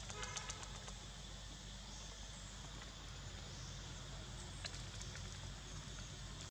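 Forest ambience: a steady high insect drone over a low rumble, with a quick run of small clicks in the first half-second and one more click a little before the end.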